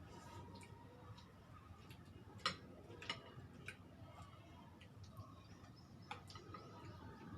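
Cutlery clinking against plates a few times during a meal: scattered light clicks, the loudest about two and a half seconds in, over a quiet room.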